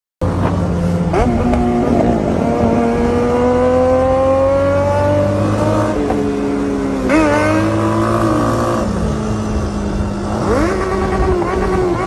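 An engine revving up and down. Its pitch climbs slowly for several seconds, drops about six seconds in, jumps up again, falls near nine seconds and climbs once more, all over a steady low hum.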